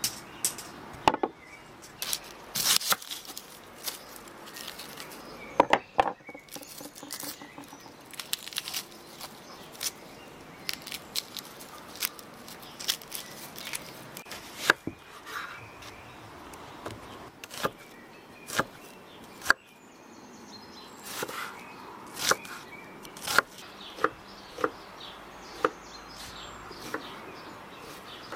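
Irregular clicks and knocks of hands-on food preparation on a wooden table: a wooden lid set over a wooden bowl of dough, a small knife peeling onions, then a run of knife strokes chopping onion on a wooden cutting board near the end. Birds chirp faintly in the background.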